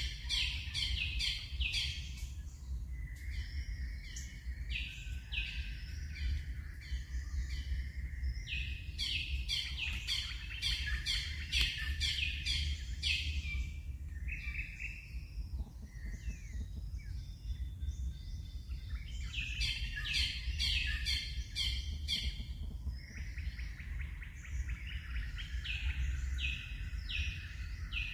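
Small birds chirping in quick runs of repeated high notes, with short pauses between runs, over a steady low rumble.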